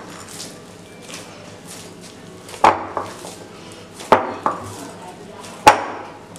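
Pizza dough being mixed by hand in a bowl: soft working sounds, then five sharp knocks against the bowl, in two quick pairs and a loudest single one near the end.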